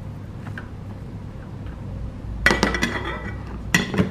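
Metal spoon scraping and clinking against a glass bowl while stirring shredded chicken and cabbage. A quick run of scrapes and clinks comes about two and a half seconds in, and one sharp ringing clink comes near the end.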